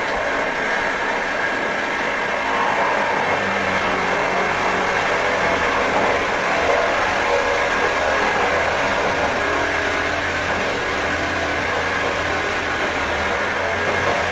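Power drill running continuously at a steady, loud pace, cutting in abruptly at the start.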